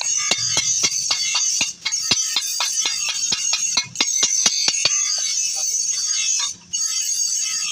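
Hand hammer striking a steel chaff cutter blade on an anvil, quick blows about four a second that stop about five seconds in, over background music.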